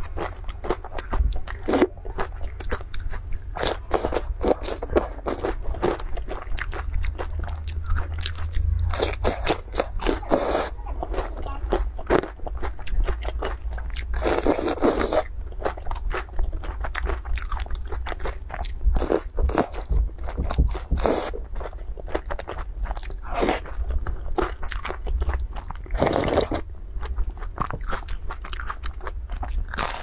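Close-miked eating of fried dough sticks (youtiao) and soup-soaked pieces: continual chewing and biting with crisp crunching and wet mouth sounds. There are a few longer slurps about 10, 15 and 26 seconds in.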